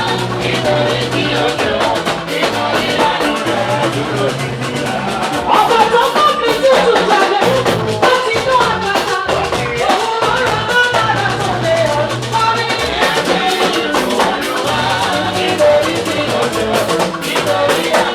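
Live gospel praise band playing: drum kit with a shaker-like rattle, sustained bass notes and a wavering vocal or keyboard melody line.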